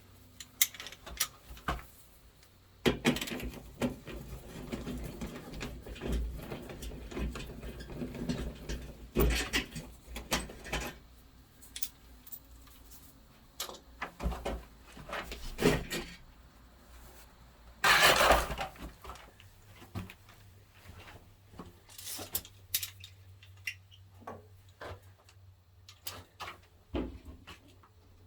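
Ratchet and socket clicking with metal clinks and rattles as the 10 mm bolts holding a car's underbody skid plate are taken out and the plate is pulled off. A louder rasp of about a second comes roughly two-thirds of the way through.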